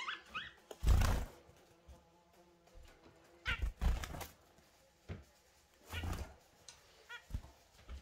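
Caged budgies and zebra finches: a few short chirping calls near the start and again about six seconds in, and brief rustling thumps about a second in, around four seconds and around six seconds as the birds hop and flutter between perches.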